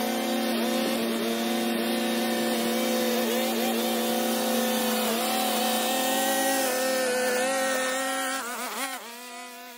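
Gas string trimmer engine running at steady high speed, its high buzzing note wavering slightly now and then. Near the end the engine speed swings up and down and the sound drops away.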